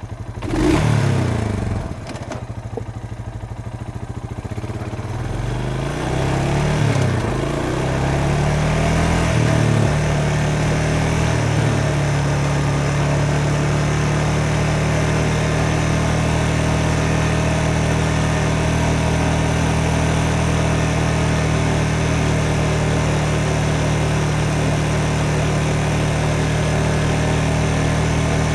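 Motorcycle engine catching and revving, then blipped up and down several times before settling into a steady idle for the last half or so.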